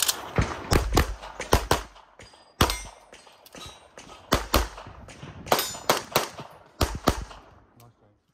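Rapid pistol fire from a Tanfoglio pistol, about twenty shots mostly in quick pairs with short pauses between them, during a practical-shooting stage.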